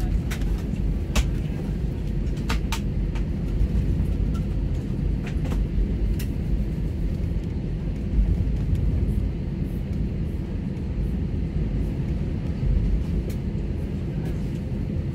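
Steady low rumble inside a jet airliner's cabin as it taxis, from the engines at low thrust and the cabin air. A few light clicks and rattles come in the first six seconds.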